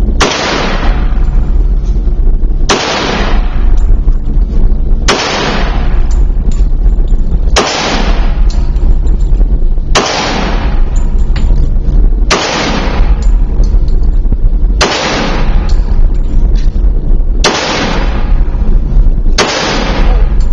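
HK Mark 23 .45 ACP pistol fired in slow, single aimed shots, nine in all, about two and a half seconds apart. Each shot is followed by about a second of echo, over a constant low rumble of wind on the microphone.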